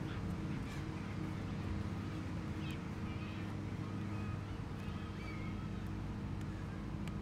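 A steady engine drone holding an even pitch, with a few faint taps of a soccer ball being dribbled on grass.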